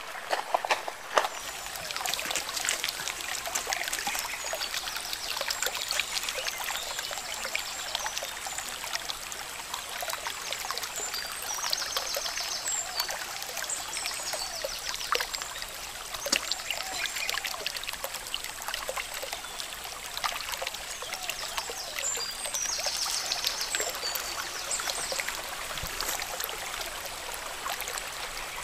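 Shallow stream trickling steadily over pebbles and stones.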